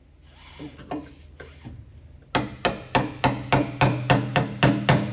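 A hammer tapping a punch against the fuel sender's locking ring on a steel fuel tank, turning the ring to lock the sender in. Faint handling clicks come first; then, a little past halfway, sharp metallic strikes start at about four a second.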